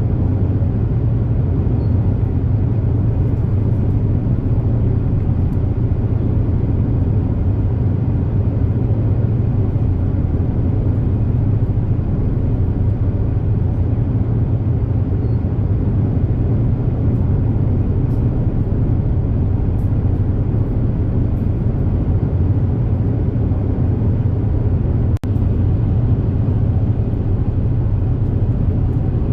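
Super Jet high-speed ferry "Zuikō" running at cruising speed, heard on board: a steady deep engine drone with a rushing noise over it. The sound briefly drops out about 25 seconds in.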